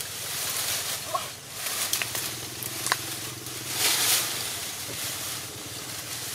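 Leafy bush branches rustling and twigs snapping as they are yanked and torn off by hand, with a louder swish of leaves about four seconds in. A faint steady low hum runs underneath.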